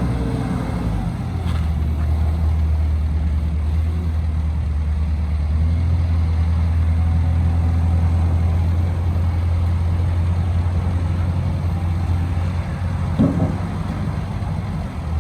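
Caterpillar 242B skid steer's diesel engine running steadily with a deep, even hum, and a brief higher-pitched sound about thirteen seconds in.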